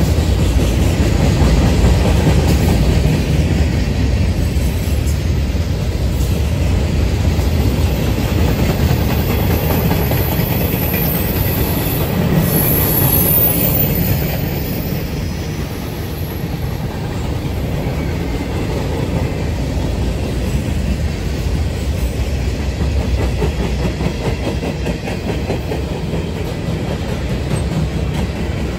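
Freight cars of a CSX manifest train rolling past, a steady low rumble of steel wheels on the rails with clickety-clack over the joints. A thin high wheel squeal rises about a third of the way in and lasts several seconds.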